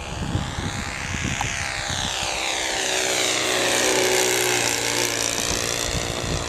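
Engine and propeller of a radio-controlled scale Piper Cub model airplane in a low fly-by, getting louder as it passes close about four seconds in, then easing off as it climbs away.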